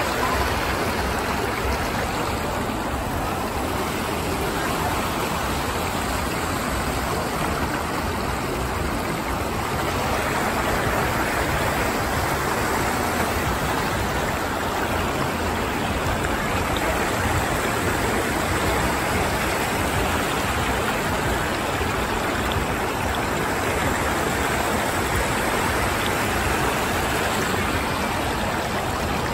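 Whirlpool fountain: a large body of water swirling round a bowl and rushing down its central drain, a steady rush of falling water that grows a little fuller about ten seconds in.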